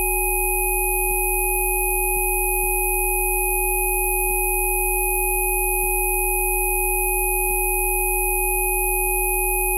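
Several steady synthesized sine tones sounding together without change, a deep hum underneath with higher pure tones above it: a Rife-style frequency-therapy track.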